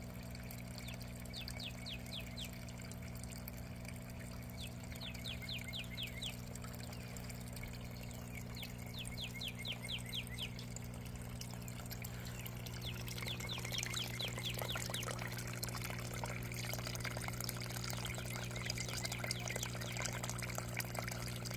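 Water trickling and pouring in a backyard aquaponics system over a steady low hum. A songbird sings a rapid trill of repeated down-slurred notes four times.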